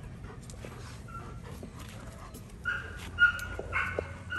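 A German shepherd-type dog whining in short, high-pitched whimpers, one faint one about a second in and several more in quick succession near the end.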